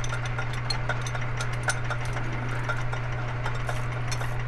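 Bench-top machine tool's electric motor running steadily with a boring tool spinning in a plastic cue ball knob, a constant hum with scattered light ticks.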